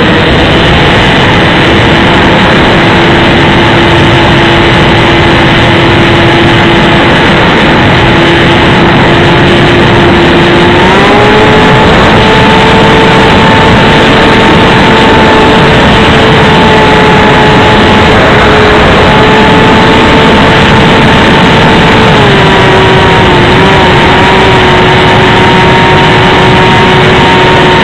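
Electric motor and propeller of an XK DHC-2 A600 RC plane running, heard from a camera mounted on the plane, with a steady tone over loud wind rush on the microphone. The motor's pitch steps up about a third of the way through as the throttle opens, then drops back a little and wavers briefly later on.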